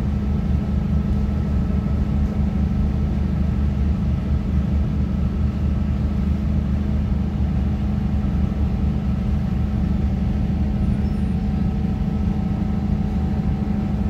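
Steady running noise of a diesel multiple-unit train heard from inside the carriage: a low engine and wheel-on-rail drone with a steady hum over it.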